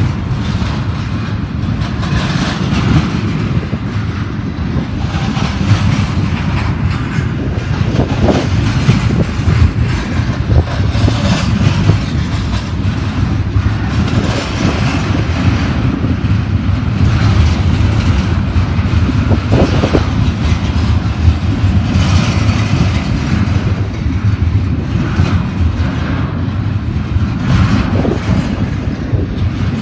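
Loaded double-stack container train passing close by: its steel wheels rumble and clatter along the rails as the well cars roll past, loud and continuous.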